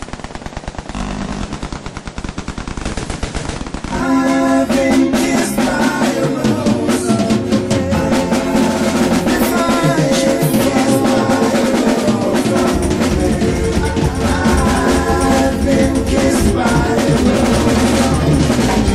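Rapid automatic machine-gun fire for about four seconds, then a loud rock band comes in: live drum kit and cymbals under sustained chords.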